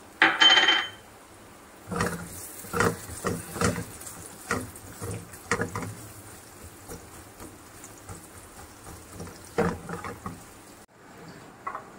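Spatula stirring sliced onions in oil in a non-stick wok: a string of scrapes and taps against the pan over several seconds. A brief, louder clatter comes just at the start.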